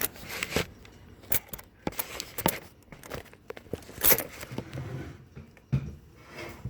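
Master Lock padlock being handled and worked with a tension wrench and a pick made from a nail: irregular metal clicks, taps and rattles, with a louder knock about four seconds in.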